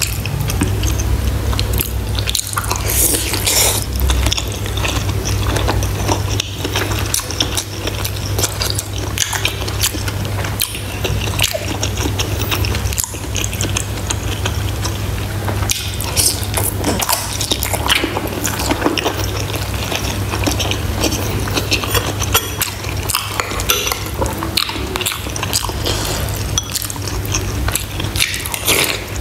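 Close-miked wet eating sounds: chewing and squelching of soup-soaked bitter melon and pork, with broth dripping and small wet clicks throughout, over a steady low hum.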